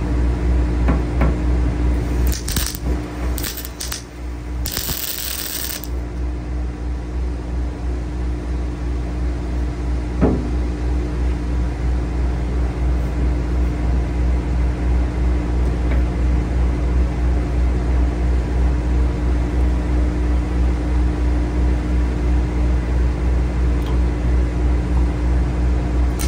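An engine running steadily with a low, even hum, and a short burst of high hiss about five seconds in.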